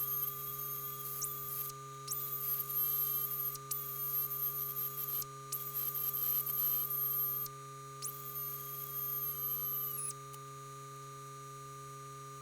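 A power grinder hogging out a hole in a steel turbo downpipe, running in about five bursts of a high-pitched whine, each rising as the tool spins up and falling as it stops. A steady hum runs underneath.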